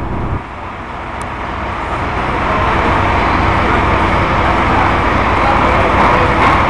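Backhoe diesel engines running steadily, growing louder over the first few seconds and then holding.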